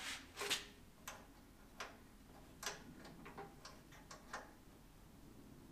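Irregular light metal clicks and taps from the parts of a WEN metal-cutting bandsaw being handled and adjusted, about ten over a few seconds.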